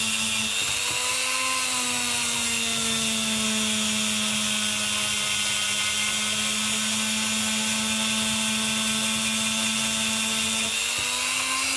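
Small handheld rotary tool (Bohrschleifer) running with a polishing bit and green polishing paste, buffing the copper traces of a milled circuit board to a shine. Its motor gives a steady whine whose pitch wavers slightly.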